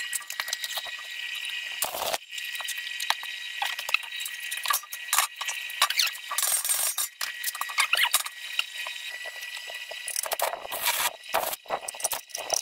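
Stick (arc) welding on steel: a continuous crackling sizzle of the electrode arc, broken by frequent sharp clicks and a few louder metallic knocks.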